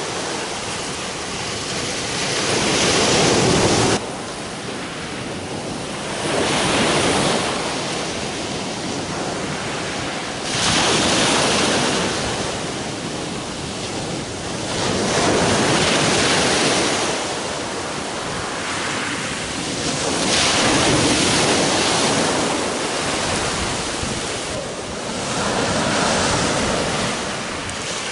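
Sea surf breaking on a shingle beach, the rush of each wave swelling and falling back every four or five seconds.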